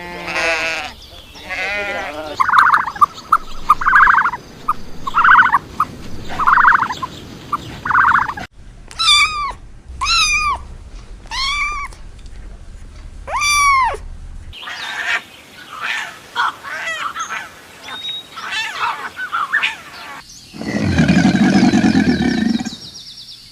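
A run of different animal calls one after another. First about six short repeated calls, then four high calls that each rise and fall in pitch, then a scatter of short chirps. Near the end comes one long low call that resembles a roar.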